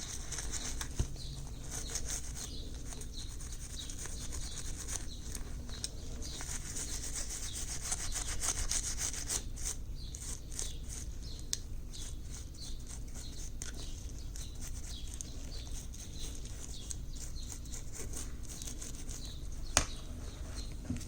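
A brush scrubbing rapidly back and forth over a small diecast metal body, stripping off its old paint. There is a sharp click about a second in and another near the end.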